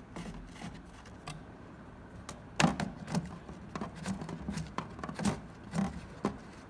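Scattered light plastic clicks and knocks from a FoodCycler's carbon filter cartridge being twisted into its housing and handled. The loudest knock comes a little over two and a half seconds in.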